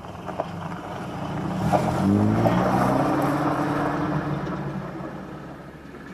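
A motor vehicle's engine comes up loud about a second and a half in, its pitch rising as it speeds up, then fades away as it passes and drives off.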